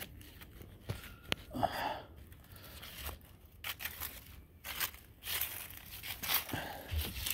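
Irregular scuffing and rustling: footsteps on wooden deck boards and handling noise from the handheld camera as it is carried along the railing.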